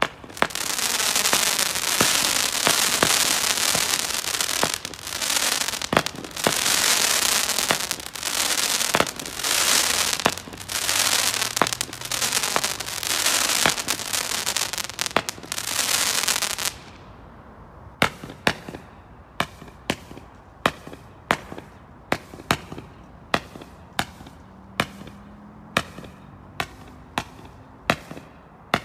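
Skycrafter Thermo Shock firework going off. For about seventeen seconds there is a loud, continuous hissing and crackling gush of sparks that surges in pulses, then it cuts off suddenly. It is followed by a regular run of sharp cracks, about two a second.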